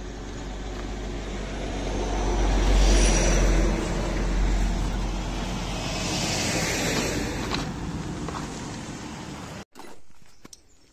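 Road vehicle noise passing close by: a low rumble with a rushing hiss that swells to its loudest about three seconds in, stays loud, then fades. A sudden cut near the end leaves a few light clicks and knocks.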